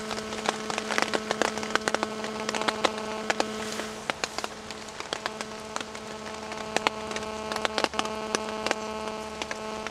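Rain dripping onto a tarp overhead: irregular sharp taps and patters over a faint hiss, with a steady low hum underneath.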